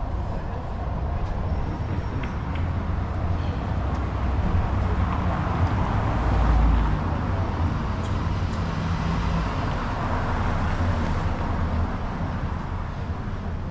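A motor vehicle passing in the street, with engine rumble and road noise that swell to their loudest about halfway through and then fade.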